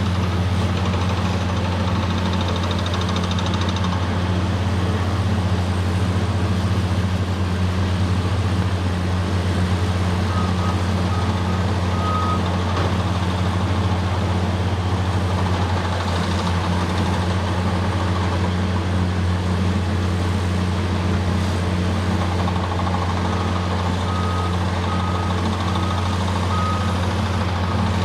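Diesel engine of a Caterpillar 963C track loader running steadily under work. A backup alarm beeps in short, evenly spaced runs, once about a third of the way in and again near the end.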